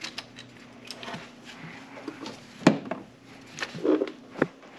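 Hand tools and metal engine parts clinking and knocking, with a sharp knock about two and a half seconds in and a short rattle near the end.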